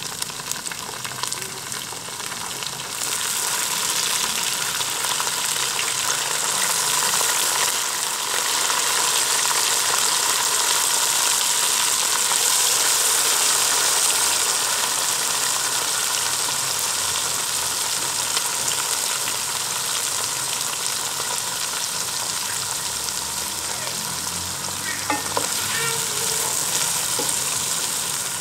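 Boiled boneless beef and half-fried bitter gourd (karela) sizzling loudly in hot oil in a kadai while being stirred. The sizzle grows louder about three seconds in.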